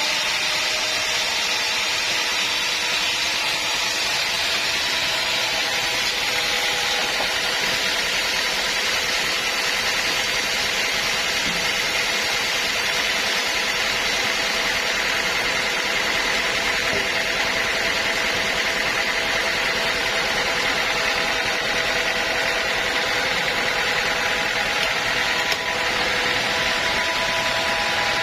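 Sawmill saw running steadily through a teak log, an unbroken machine noise with a few held tones in it.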